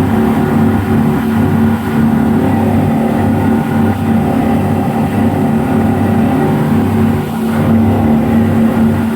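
Speedboat's twin 250 hp outboard engines running steadily at speed, a loud, even engine drone.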